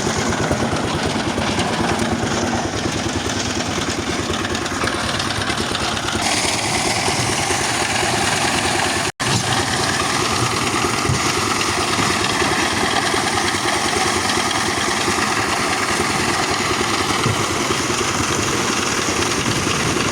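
Concrete mixer machine running steadily, its engine and turning drum making a constant mechanical din. The sound drops out for an instant about nine seconds in.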